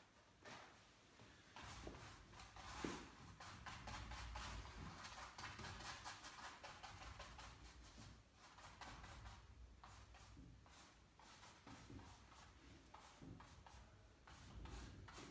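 Faint brush strokes on paper: a busy run of short, scratchy strokes starting about two seconds in, easing off in the second half.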